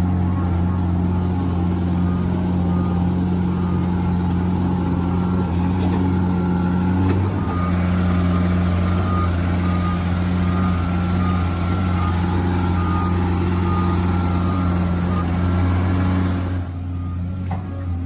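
A heavy truck's engine runs with a steady low drone while its reversing alarm beeps over and over at an even pace. Near the end the beeping stops and the sound turns duller and a little quieter.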